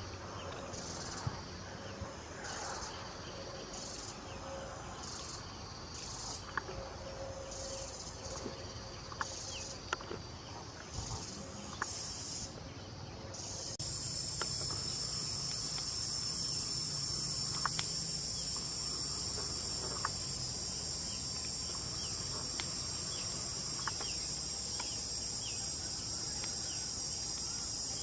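Insects in the forest chirping in high-pitched pulses about once a second, switching about halfway through to a continuous high buzz, with scattered faint clicks.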